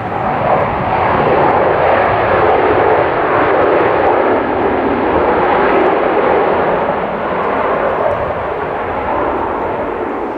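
Boeing 737-800's CFM56 jet engines rushing loudly as the airliner rolls out on the runway after touchdown; the noise swells about half a second in, holds steady, then eases off over the last few seconds as the aircraft slows.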